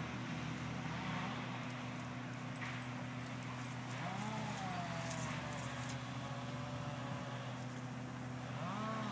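Dogs sniffing and playing, with a drawn-out whine-like call about four seconds in that rises, then slowly falls, and a shorter one near the end, over a steady low hum. Light jingling of collar tags.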